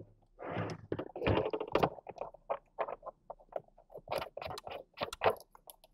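Threading the SIM-card gland cap on a plastic antenna enclosure and handling the case: irregular small clicks and scrapes of plastic, the kind of threading that is easy to cross-thread.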